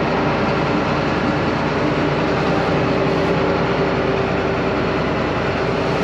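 John Deere 9500 combine running steadily close by, a constant diesel engine and machinery sound with several steady tones through it.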